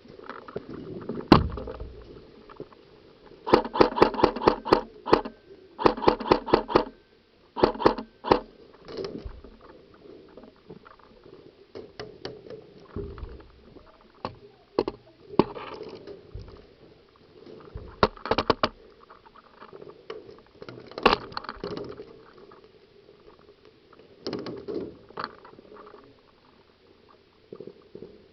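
Airsoft gun firing three short bursts of rapid shots, roughly seven to eight a second, a few seconds in. Scattered single snaps and knocks follow.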